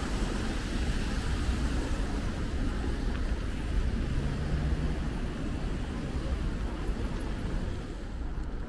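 Steady city street traffic noise with a low rumble of wind on the microphone from the moving bike.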